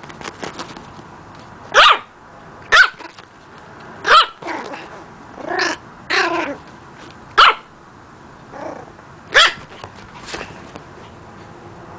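A young puppy barking, still learning to bark: sharp high yaps every second or two, with a couple of longer barks around the middle that fall in pitch and sound growly.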